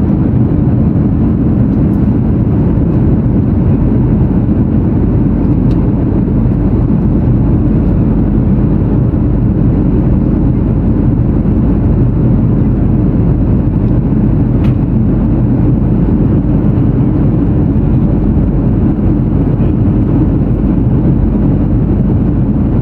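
Jet airliner cabin noise in flight: the steady low rush of engines and airflow heard inside the cabin.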